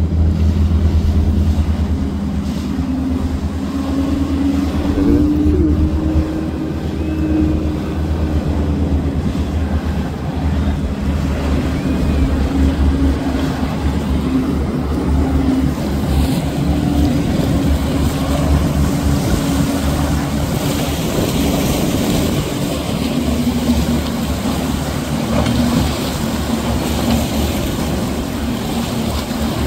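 Motorboat engines running as boats pass at speed: a steady engine drone over a constant low rumble, its pitch drifting up and down as the boats come by.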